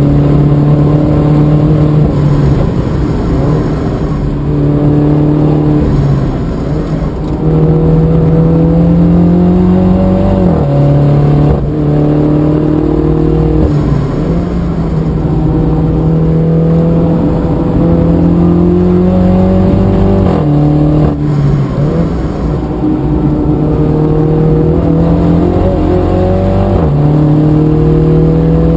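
Onboard sound from inside the cabin of a MINI F56 John Cooper Works at full throttle, its stock 2.0-litre turbocharged four-cylinder engine running hard. The engine note climbs steadily and drops sharply at each gear change, four or five times in all, with brief lifts off the throttle for corners. Tyre and wind noise run underneath.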